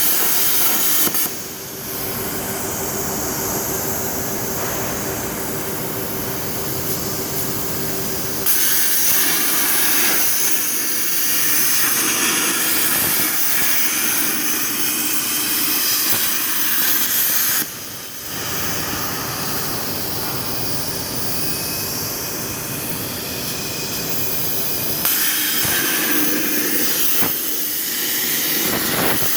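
CNC plasma cutting torch cutting 4 mm steel plate: a loud, steady hiss. It drops suddenly in level about a second in and again around 18 seconds, and jumps back up around 8 and 25 seconds.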